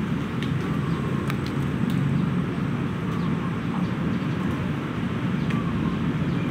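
Steady low rumble of outdoor background noise, with scattered faint clicks and a few brief faint chirps.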